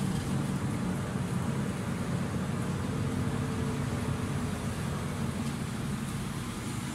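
City bus engine running with a steady low hum and rumble, heard from inside the passenger cabin.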